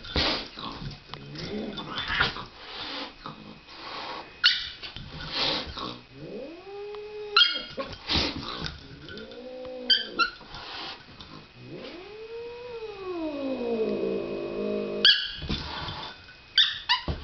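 A domestic cat hissing in sharp bursts, then giving several yowls that rise and fall in pitch, one long and drawn out, and hissing again near the end. This is a cat's aggressive warning in a fight with another pet.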